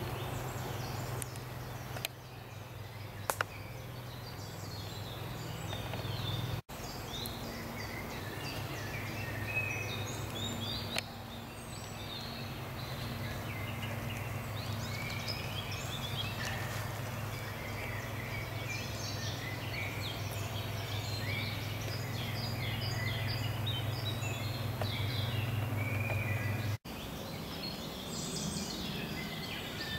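Woodland songbirds chirping and trilling, many short calls overlapping, over a steady low hum. The birdsong is thickest through the middle stretch and thins out near the end.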